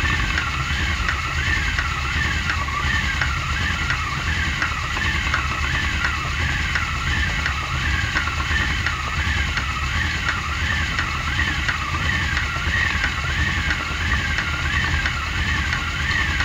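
Wooden spinning wheel running as wool is spun: the flyer and bobbin whir steadily, the pitch rising and falling in an even rhythm about one and a half times a second as the wheel is driven round, over a low steady rumble.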